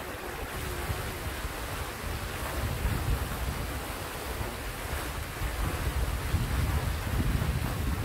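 Steady rushing splash of a tall jet fountain falling back into a pond, with wind buffeting the microphone in low gusts that grow heavier in the second half.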